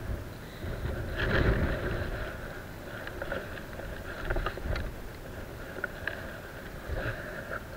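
Wind buffeting the microphone as a low, uneven rumble, strongest about a second in, with scattered light clicks and rustles from handling a spinning rod and reel.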